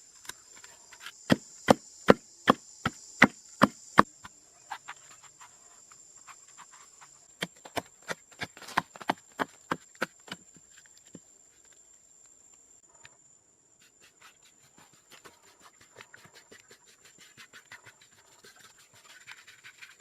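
Rhythmic chopping strikes on wood, about two and a half a second, in two runs near the start and around eight to ten seconds in, then softer scattered tapping and scraping. A thin, steady, high-pitched insect drone runs underneath.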